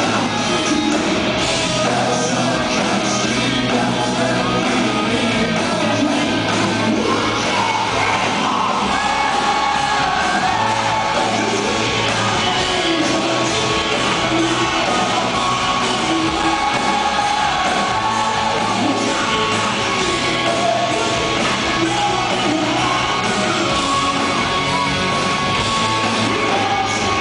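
Live rock band playing, with a man singing lead over the band, heard from the crowd in a large hall.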